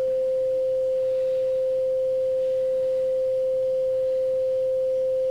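A steady, pure, mid-pitched electronic sine tone held at one pitch. It is a test tone converted from a wavelength of visible light into a sound frequency.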